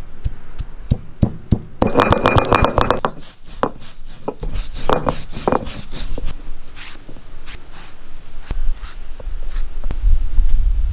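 Heavy stone roller striking and crushing fennel seeds on a flat grinding stone: quick clusters of hard stone-on-stone knocks and crunches, then scattered single knocks. A low rumble rises near the end.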